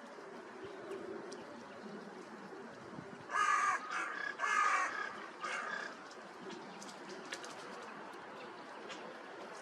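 Crow cawing: four harsh caws in quick succession, starting about a third of the way in, over a faint steady background.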